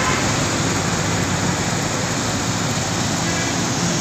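Steady rumble and hiss of road traffic, with a low hum underneath.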